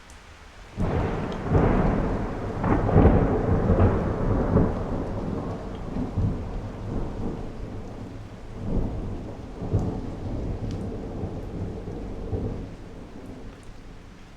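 A thunderclap over steady rain: it breaks suddenly about a second in, rolls with several cracks over the next few seconds, swells again later, and rumbles away near the end, leaving the rain.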